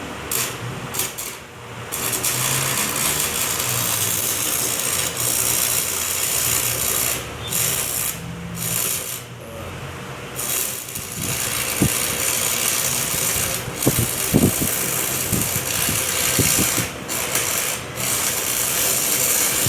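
Arc welding with an old non-inverter Yamato welding machine: the arc crackles and hisses steadily, breaking off briefly a few times. It is a load test of a newly fitted 60-amp breaker, which does not trip.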